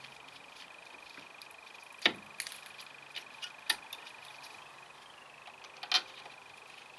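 A few sharp clicks and knocks: a loud one about two seconds in, smaller ones over the next two seconds, and another loud one near six seconds. A faint steady high-pitched tone runs underneath.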